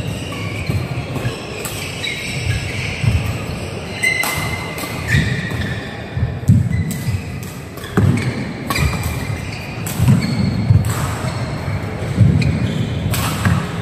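Badminton rally on an indoor court: sharp racket strikes on the shuttlecock at irregular intervals, with thudding footfalls of the players.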